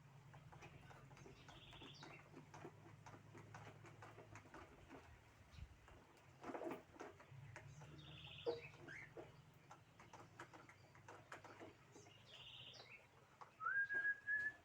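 Caged birds calling. A short, high chirping figure comes three times, with light clicks in between over a low hum. Near the end a louder whistled note rises and then holds.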